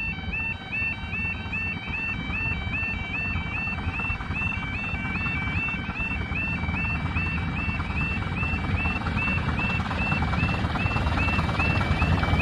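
Level crossing audible warning alarm warbling steadily between two high tones, about twice a second. Under it is the low rumble of an approaching miniature train, growing louder toward the end.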